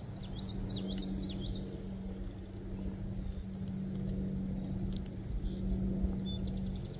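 Songbirds singing outdoors: a fast, high repeated trill and a short warbling phrase in the first second or so, with the trill starting again near the end. Underneath, a steady low hum and a low wind rumble run throughout.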